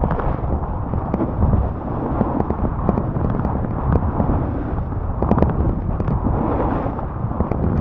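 Snowboard sliding and scraping over piste snow, a steady rough rush dotted with small scrapes and ticks, with wind rumbling on the microphone.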